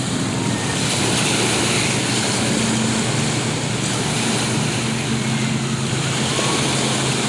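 Motorboat engine running steadily under way, with a steady hum over wind and water noise.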